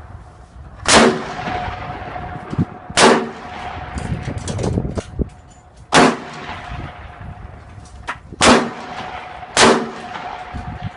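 Strong wind with five loud bangs, about a second in, at three, six, eight and a half and near ten seconds, each followed by a lingering ringing tone, like something metal being banged by the gusts.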